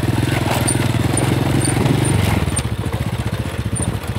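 Small motorcycle engine running steadily at low riding speed, easing off a little about two seconds in. Short high chirps repeat faintly above it.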